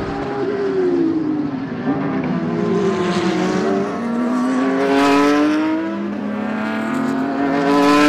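Mercedes-AMG GT Black Series' twin-turbo V8 at speed on a race track. Its pitch drops over the first two seconds, then climbs, dips and climbs again several times, rising steadily near the end.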